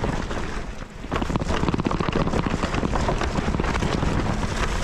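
Wind buffeting the microphone of a camera carried on a mountain bike, with the dense rattling and knocking of the bike over rough trail. It gets louder about a second in.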